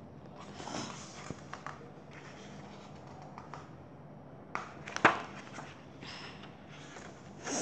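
Pages of a paperback picture book being flipped and riffled by hand, papery rustles coming in several bursts, with a sharp knock about five seconds in.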